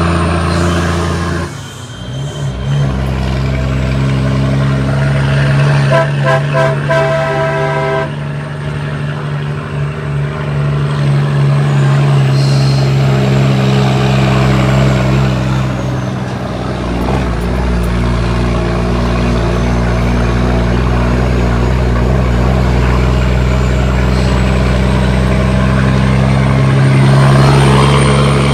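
Cummins ISX diesel in an International ProStar truck running under load while driving, its pitch dropping and changing at gear shifts of the 18-speed transmission, once near the start and again about halfway through. A horn sounds for about two seconds early on.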